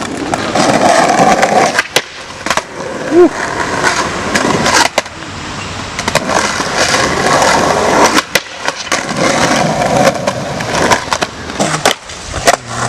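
Skateboard wheels rolling in several swelling runs, with many sharp clacks and knocks of boards striking the ground.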